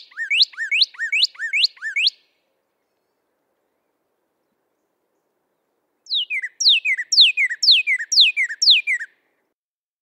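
Male northern cardinal singing its "what cheer, what cheer" song. First comes a phrase of about six quick rising whistles, then a pause of about four seconds, then a phrase of about seven clear falling whistles, roughly two a second.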